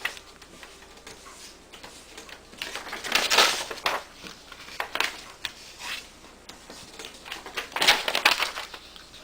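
Sheet of copy paper being creased by hand, with several short rustling scrapes as the fold is pressed and run over again and again.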